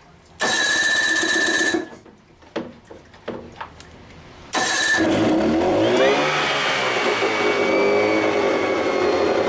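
1988 Evinrude 55 hp commercial two-stroke outboard being cranked. The first try lasts about a second and a half and does not catch. A second try about four and a half seconds in fires it: the engine revs up and settles into a steady run.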